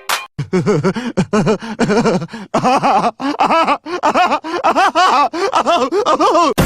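A rapid run of short, wordless vocal cries, several a second, each rising and falling in pitch, climbing higher about halfway through.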